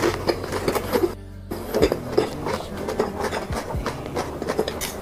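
Close-miked chewing of a deep-fried shiitake-and-meat skewer: irregular wet mouth clicks and crunches, with a short break a little past a second in.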